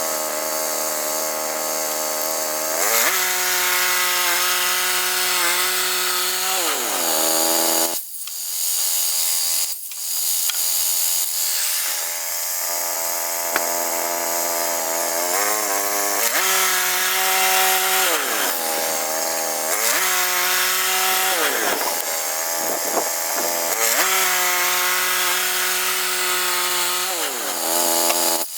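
Woodland Mills HM122 portable bandsaw mill sawing a log: its gas engine runs hard with the speed falling and rising several times, over the hiss of the band blade in the wood.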